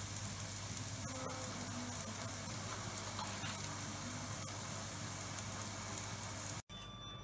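Sliced shiitake mushrooms and celery sizzling in a frying pan with garlic and herbs: a steady frying sizzle that cuts off suddenly near the end.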